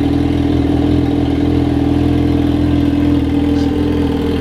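Yamaha XJ6's inline-four engine idling steadily in neutral just after a start, warming up, through its loud exhaust.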